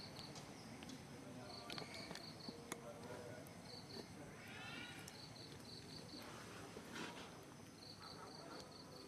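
Faint insects chirping in short repeated trains of quick, evenly spaced pulses, with outdoor background noise. A brief squeaky animal call comes about four and a half seconds in, and there are a few light clicks.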